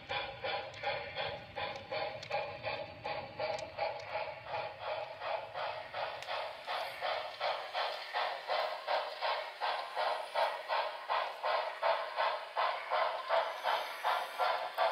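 Sound decoder of a model steam locomotive chuffing in a steady rhythm of about three to four beats a second, growing a little louder in the second half, heard through its small speaker. A low rumble of rolling model freight cars sits under it until about eight seconds in.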